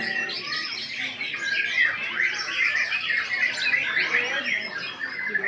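Several white-rumped shamas singing at once: a dense tangle of quick, varied whistles and chirps overlapping with no pause.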